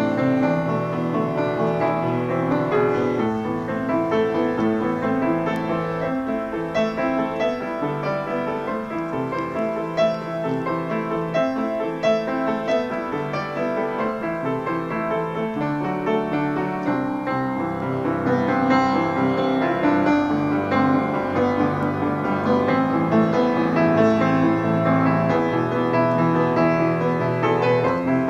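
Upright piano played solo, a continuous flow of notes that grows a little louder about two-thirds of the way through.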